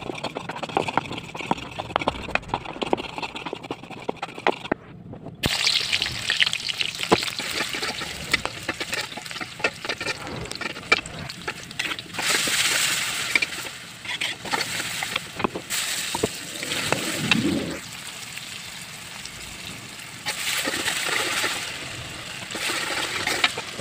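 A stone pestle grinding chillies and garlic on a flat stone mortar, with rapid scraping taps. After a break about five seconds in, shallots sizzle in hot oil in a wok. Near the end, water poured into the frying chili paste hisses, and a metal spatula scrapes the pan.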